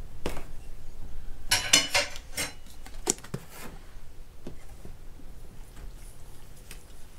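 A metal measuring cup clattering and clinking against a stainless steel mixing bowl as breadcrumbs are tipped in, followed by a few single light knocks as kitchenware is set down on the counter.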